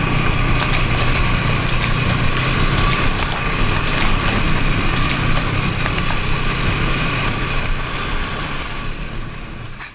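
Snowmobile engine running steadily at cruising speed, a steady whine over a low rumble, with scattered sharp ticks and knocks from the ride. The sound fades out near the end.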